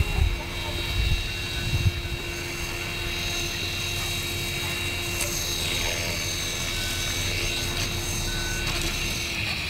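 Align T-Rex 450 Pro electric RC helicopter in flight, with a steady high whine from its motor and gears and rotor noise, shifting in pitch a little around the middle. A few low thumps in the first two seconds are louder than the helicopter.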